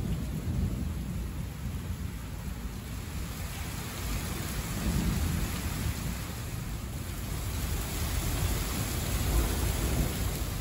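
Thunderstorm: steady rain falling on roofs with a low rumble of thunder underneath. The rain's hiss grows heavier about halfway through.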